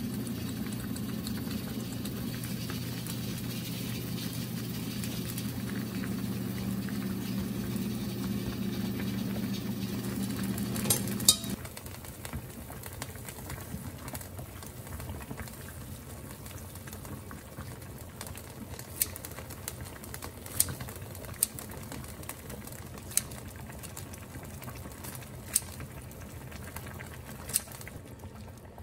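Kimchi stew bubbling at a boil in a stainless steel pot, with a steady low hum beneath it for roughly the first eleven seconds. After a sharp click the hum stops and the simmering carries on more quietly, with occasional light clinks of metal scissors and tongs against the pot.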